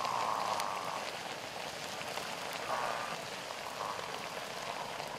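Wok of pig intestines simmering in liquid over a wood fire: a steady bubbling hiss with faint scattered crackles.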